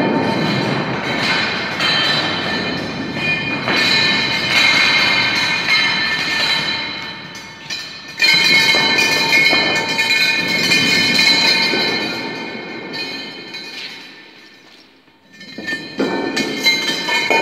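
A red steel fire-extinguisher cylinder pushed by foot so that it rolls and scrapes over a concrete floor: a rough rumbling scrape with a ringing metallic tone, coming in several pushes. It nearly stops for a moment about fifteen seconds in, then starts again.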